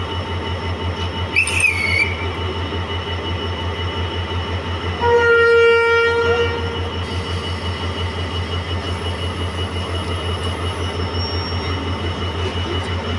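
A diesel locomotive engine idles with a steady low throb. About a second in there is a short shrill whistle. About five seconds in, the train's multi-note horn blows once for about a second and a half, the departure signal given as the guard waves the green flag.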